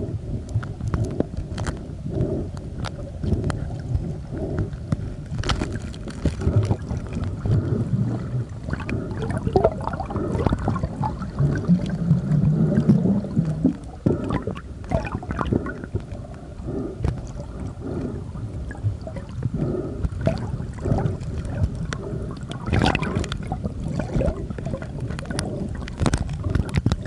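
Muffled underwater gurgling of bubbles and moving water, heard through an underwater camera, with irregular clicks and knocks throughout and a brief louder swell about twelve seconds in.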